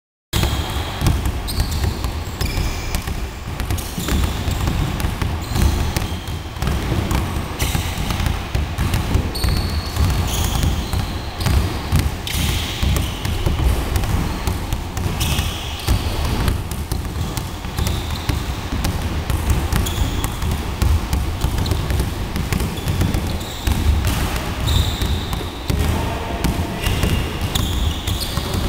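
Basketballs bouncing rapidly and continuously on a wooden gym floor during a dribbling drill, with short high sneaker squeaks on the floor now and then.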